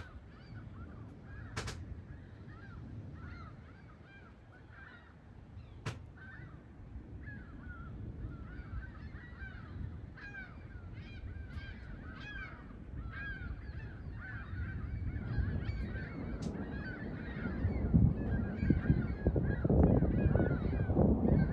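A dense chorus of short, repeated animal calls runs throughout, with a couple of sharp clicks in the first few seconds. In the second half a low rumble from the approaching storm builds and grows louder.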